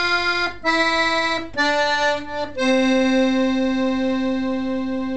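Piano accordion's right-hand keyboard playing single notes stepping down a scale, F, E, D, then landing on C about two and a half seconds in and holding it, slowly fading. These are the last notes of a five-finger scale played backwards from G down to C.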